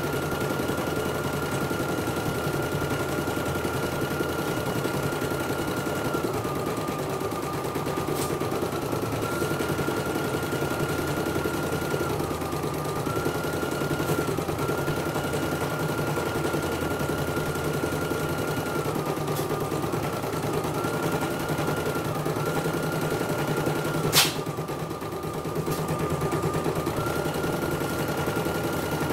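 CNY portable computerised embroidery machine stitching a design on a test run after repair: a fast, steady chatter of needle strokes over a motor whine that dips slightly in pitch now and then. One sharp click sounds about five seconds before the end.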